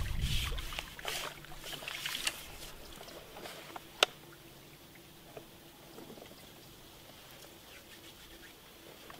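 A hooked carp splashing at the surface as it is played in close and drawn to the landing net, in a few irregular splashes over the first couple of seconds; about four seconds in comes a single sharp click.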